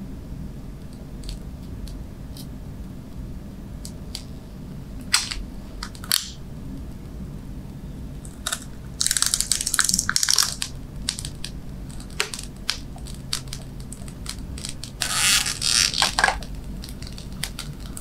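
Protective plastic film being peeled slowly off a PC case's glass side panel, crackling with scattered small clicks. Louder bursts of crinkling come about nine seconds in and again around fifteen seconds.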